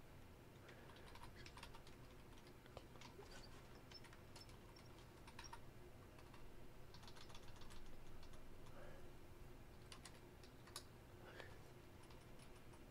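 Faint computer keyboard typing: scattered, irregular key clicks over a faint steady hum.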